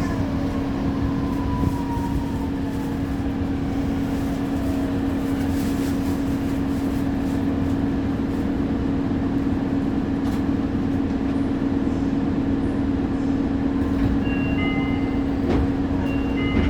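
Yui Rail monorail train running, a steady hum with a whine that falls in pitch over the first few seconds. A few short high tones sound near the end.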